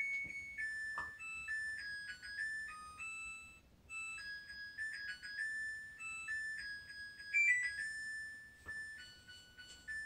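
A simple electronic beeper-style melody: a tune of plain, sharply stepped tones with no pauses.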